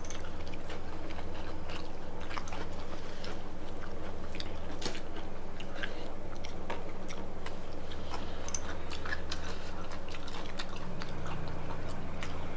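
People chewing and eating tandoori bhetki fish, with scattered small clicks and mouth sounds over a steady low hum.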